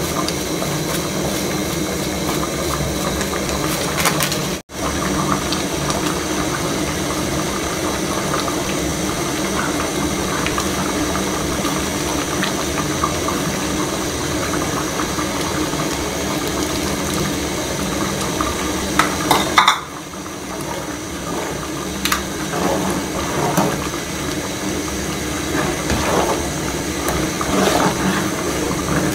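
Soup boiling in an aluminium pot on a gas burner, a steady noise that breaks off briefly a few seconds in and changes again just past the middle. In the last third a metal spoon stirs the soup, knocking and scraping against the pot.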